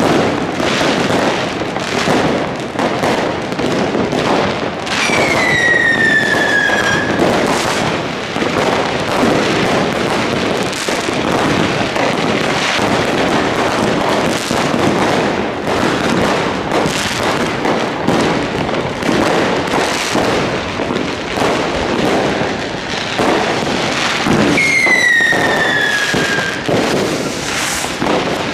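Many fireworks and firecrackers going off together in a dense, continuous string of bangs. Two whistles falling in pitch cut through, one about five seconds in and one near the end.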